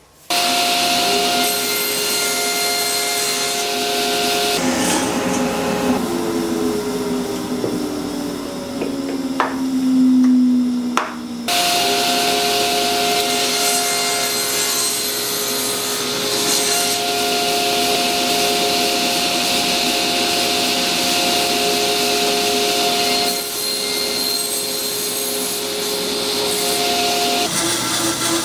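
A power tool cutting slots in plywood: a steady motor tone under the noise of the cut, with its pitch sliding and shifting for a few seconds near the middle before it settles again.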